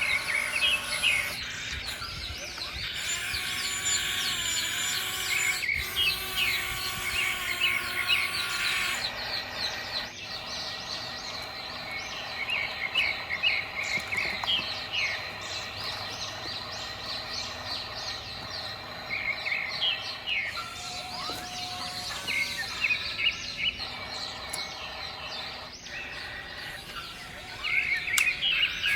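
Birds chirping and calling in repeated quick trills, with steady tones underneath.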